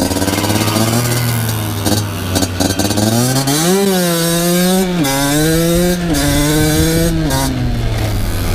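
Two-stroke motocross bike engine under load, pitch holding steady and then climbing sharply as it revs out. About five seconds in, the pitch drops suddenly, followed by a few smaller steps down as the rider shifts and rolls off the throttle.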